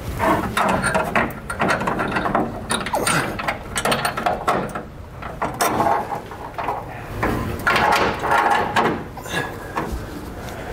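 Irregular metallic clinks and rattles of flat washers, lock washers and nuts being handled and threaded onto bracket bolts inside a steel truck frame rail.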